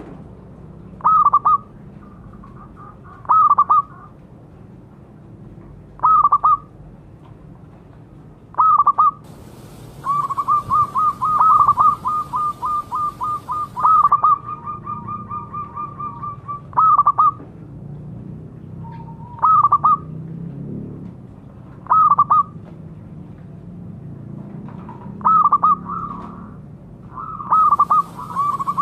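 Zebra dove (perkutut) calling: short, clipped coo phrases repeated every two to three seconds, breaking about ten seconds in into a fast run of staccato notes, about four to five a second, that fades away over a few seconds; another fast run starts near the end.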